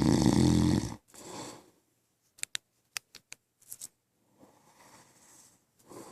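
A sleeping man snoring: one loud, low, rattling snore about a second long at the start, then a softer breath out. A few short sharp clicks follow in the middle, and quieter breathing near the end.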